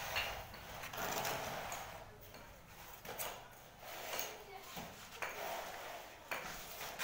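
A straightedge scraping across a wet cement screed floor as it is drawn over the surface to level it, in repeated strokes about once a second.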